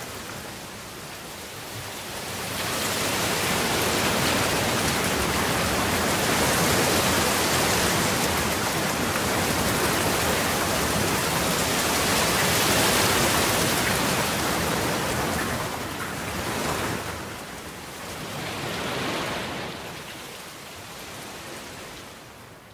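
Rain falling as a dense, even hiss. It swells about three seconds in, holds, then ebbs and surges before fading away near the end.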